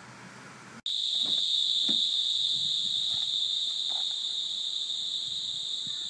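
Insects trilling in a steady, high-pitched chorus that starts abruptly about a second in, with a few soft knocks underneath. Before it, low, quiet noise inside a moving car.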